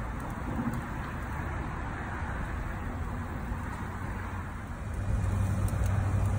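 Charcoal fire burning high in a barrel grill, a steady rushing, crackly hiss. About five seconds in, a low steady hum joins it and the sound grows louder.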